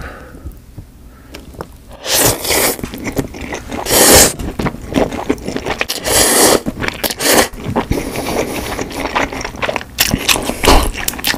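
Noodles of mentaiko cream pasta slurped loudly into the mouth, several slurps about every two seconds, with softer wet mouth sounds of chewing between.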